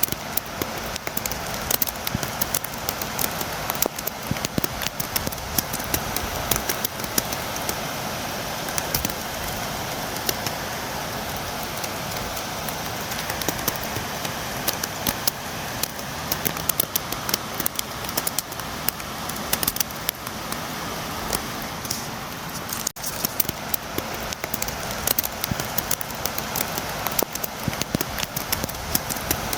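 Steady rain, with many fine drops ticking against a window pane over a constant hiss. The sound cuts out for an instant about three-quarters of the way through.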